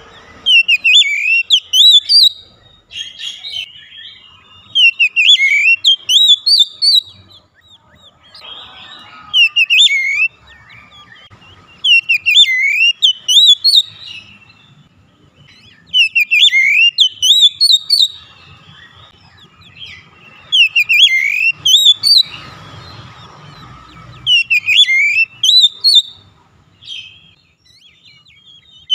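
Oriental magpie-robin (kacer) song: loud whistled phrases of quick rising and falling notes, the same kind of phrase coming again every two to four seconds.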